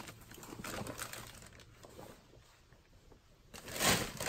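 Clothing and plastic bags rustling as they are handled and a leather jacket is pulled from the pile, faint at first, with one louder swish near the end.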